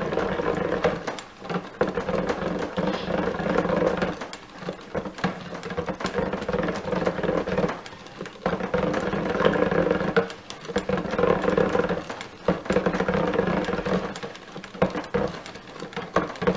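Stick blender running in bursts with several short pauses, its motor whirring as it mixes cold-process soap batter in a stainless steel pot.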